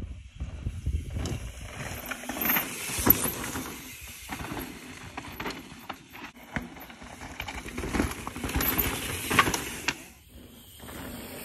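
Mountain bike descending loose dirt and rock: tyres crunching and skidding with rattling knocks from the bike, the sound swelling and fading and breaking off abruptly a few times.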